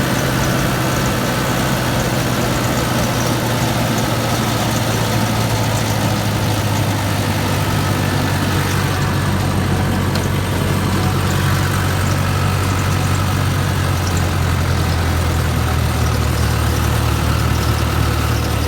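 Engine of a Morbark 290 12-inch trailer wood chipper running steadily.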